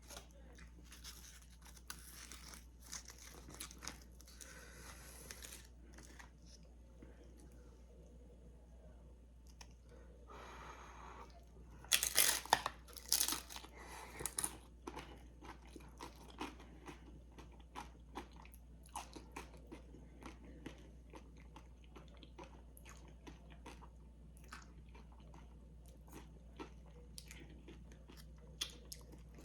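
Close-up eating: tortilla chips with dip being bitten, crunched and chewed, with many small wet mouth clicks. The loudest crunching comes about twelve seconds in and lasts a couple of seconds.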